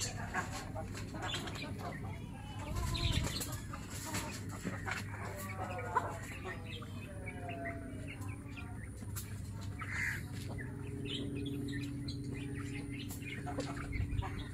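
Chickens clucking on and off, with small birds chirping and a steady low hum underneath.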